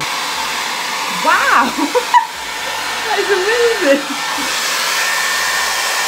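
TRESemmé Keratin hot air styler, a round-brush hair dryer, running with a steady rush of blown air.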